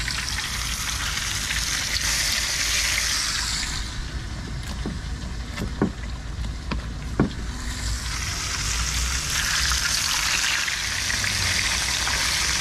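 Breaded porgy fillets sizzling in hot oil in a frying pan. The sizzle swells as a fillet goes in at the start, eases off for a few seconds with several light clicks, then grows strong again from about eight seconds on.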